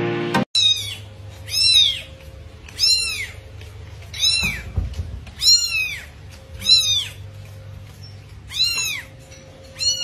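A cat meowing over and over: about eight short, high-pitched mews roughly a second apart, each rising and then falling in pitch.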